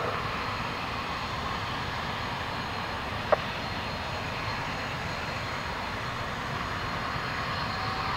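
Steady aircraft engine noise at an airfield, with one short click about three seconds in.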